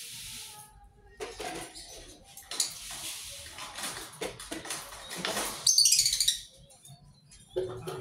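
Dry lovebird seed mix poured from a plastic scoop into plastic feed cups: several rustling, rattling pours, with light knocks as cups are handled and set down. The loudest pour comes about six seconds in.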